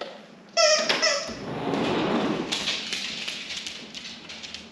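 A sliding glass patio door being slid open: a short squeal about half a second in, then a rolling rumble for a couple of seconds that slowly fades.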